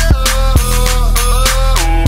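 Background music: an electronic hip-hop track with a steady deep bass, heavy kick drum strokes and a synth lead whose notes slide in pitch.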